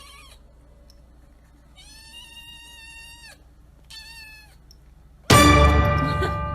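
A domestic cat meowing: the tail of one call, a long drawn-out meow about two seconds in, and a short one about four seconds in. Near the end a loud burst of music with a held, ringing note starts suddenly and slowly fades.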